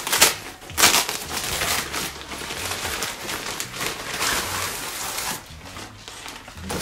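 Rustling and crinkling of a black nylon fabric bag from a softbox lighting kit being handled and unfolded, with a few sharper swishes in the first second, dying down after about five seconds.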